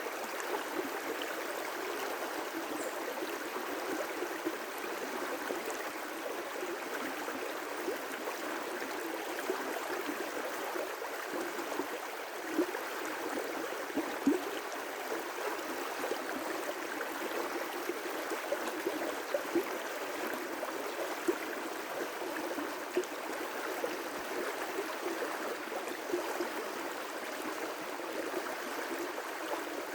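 River rapids: water rushing and splashing over rocks in a steady churning wash, with small sharp splashes here and there, a few standing out around the middle.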